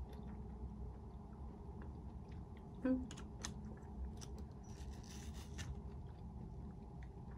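A person chewing food, with small clicks of a fork and a short hissy crunch about five seconds in, over a steady low room hum. About three seconds in, the eater gives a brief "mm".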